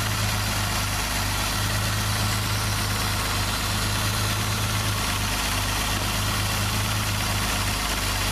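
1989 Eagle Premier's 3.0-litre OHC V6 engine idling steadily, a low even hum with no change in speed.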